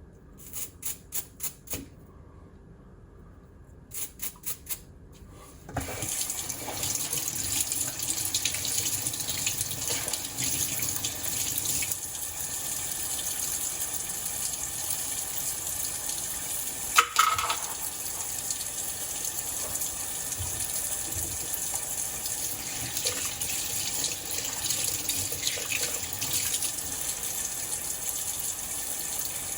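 Two short runs of quick, hissing strokes, about four a second, then a sink faucet turned on and running steadily, water splashing into the basin, with one sharp knock partway through.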